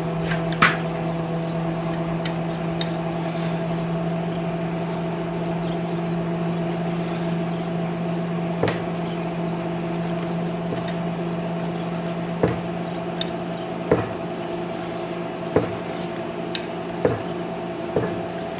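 Steady machine hum in a workshop, with sharp metallic taps or knocks every second or two in the second half.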